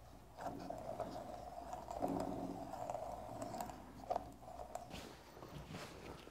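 Faint scraping and small clicks of a mirror stem being screwed by hand into the threaded mounting hole on a mobility scooter's handbrake lever.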